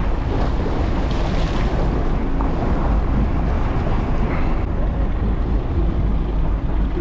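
Steady wind rumble buffeting the camera microphone aboard a boat at sea, with the wash of water against the hull underneath.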